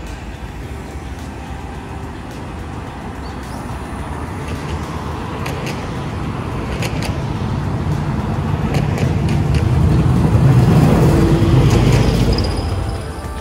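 Hiroden street tram, car 813, running along street tracks and passing close by. Its rumble grows to its loudest as it goes past near the end, then falls off quickly, over passing road traffic with a few sharp clicks midway.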